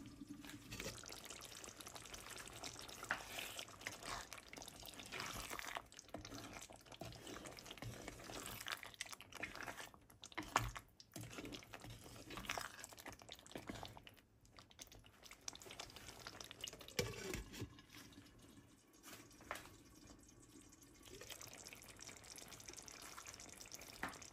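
Thick baby jackfruit curry bubbling in a clay pot and being stirred with a wooden spoon: irregular wet bubbling and squelching, with a few sharper knocks.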